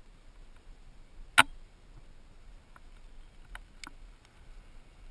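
Handling noise of a small camera being moved and set down on the sand: one sharp click about a second and a half in, then a few lighter ticks, over a faint steady hiss.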